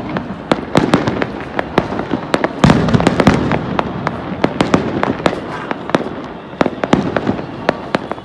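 Many fireworks going off at once: a dense, irregular run of sharp bangs and crackles over a steady low rumble, thinning a little toward the end.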